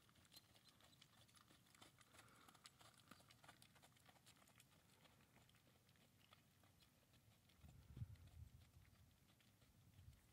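Faint hoofbeats of a quarter horse trotting on soft arena dirt, heard as light irregular clicks, with a brief low rumble about eight seconds in.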